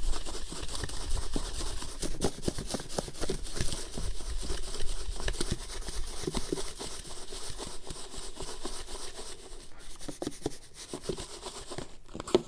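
Two whole bluegill being shaken in cornmeal breading inside a lidded plastic Tupperware container: a continuous shuffling, rubbing sound with many small knocks of the fish against the plastic.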